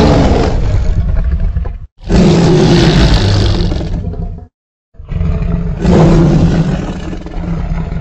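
Custom-designed Tyrannosaurus rex roar sound effect: three long, deep roars in a row with short silent gaps between them, each loud at the start and trailing off.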